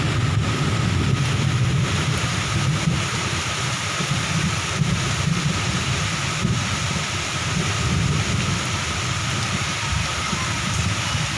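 Moderate to heavy rain falling steadily, with a steady low rumble underneath.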